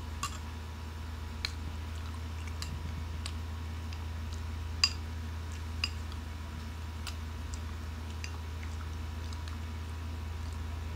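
Metal spoon clinking and scraping against a bowl of fruit salad: a dozen or so short, sharp clicks at irregular intervals, the sharpest about five seconds in, over a steady low hum.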